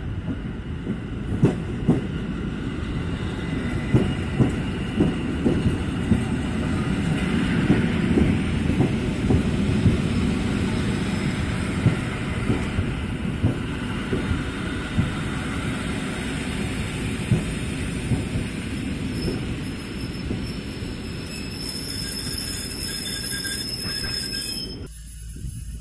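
Koleje Mazowieckie electric multiple unit rolling past along the platform: a steady rumble of wheels on rail with repeated sharp clacks over the rail joints, and a thin high squeal in the last several seconds. The sound drops suddenly about a second before the end.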